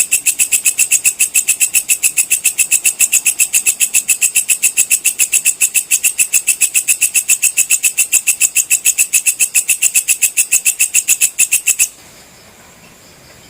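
Walang kecek (belalang kecek) insect calling: a loud, even train of rapid chirping pulses, about six or seven a second, that stops abruptly near the end.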